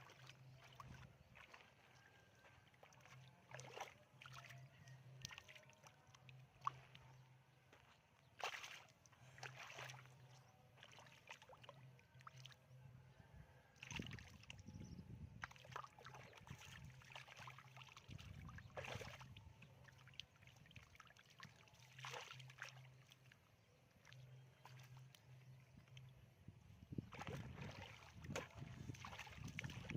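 Faint, irregular sloshing and splashing of shallow floodwater, as if someone is wading and handling a fishing net. A faint low hum comes and goes underneath.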